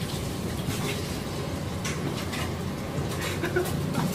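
Steady background hum with a few faint, short clicks.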